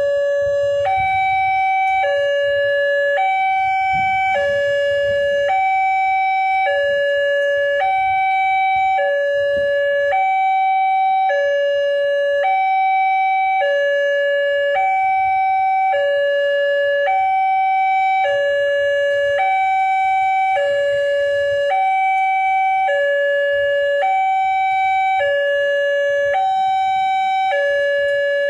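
Electronic two-tone warning siren of a railway level crossing, alternating evenly between a lower and a higher tone about once a second without a break: the crossing's warning that a train is approaching.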